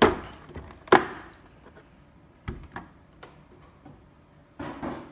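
Clear plastic blister tray and the plastic bags in it being handled: two sharp plastic clacks, one at the start and one about a second in, then a few lighter ticks and a short rustle near the end.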